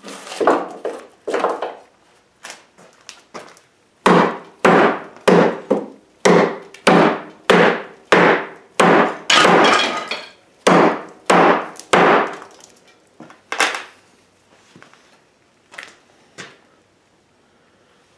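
Blade of a freshly forged torsion-bar steel kitchen knife chopped again and again into a wooden workbench edge, a test of whether the edge chips. The blows come about two a second through the middle, thin out after about fourteen seconds, and two more follow near the end.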